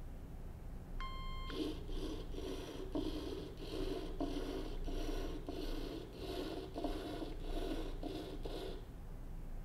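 Ozobot Evo robot beeping one short steady electronic note about a second in. Its small drive motors then run in rapid even pulses, two to three a second, as it zigzags, and they stop shortly before the end.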